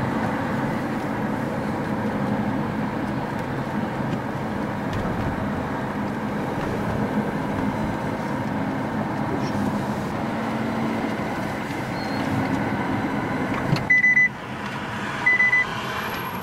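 Steady road and engine noise inside a moving car. Near the end, three short, loud, high electronic beeps about a second and a half apart.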